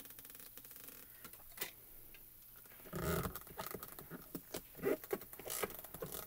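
Hinged clear acrylic lid of a MISTI stamp positioner coming down with a knock about three seconds in, followed by fingers pressing and rubbing over the clear stamp to print it, with short taps and scratchy rustles. Light clicks of handling come before it.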